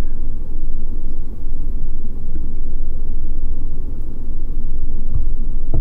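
Steady low rumble of background noise on a phone call, with nothing in the upper range.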